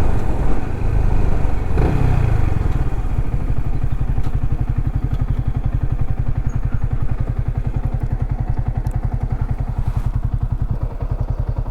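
Motorcycle engine, loud at first, its revs falling about two seconds in, then running at low revs with a steady, even beat of firing pulses.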